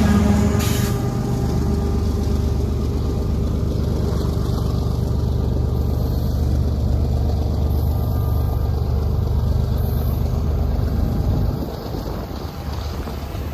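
CSX diesel freight train passing. The locomotive engine drone fades in the first second, leaving the steady low rumble of the train rolling by, which drops off sharply near the end.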